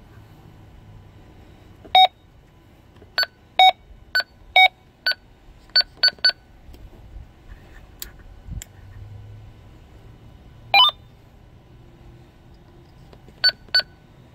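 Keypad beeps from a West Marine VHF580 marine radio as its buttons are pressed: about a dozen short electronic beeps, some singly and some in quick pairs, with one longer, rising beep near the end.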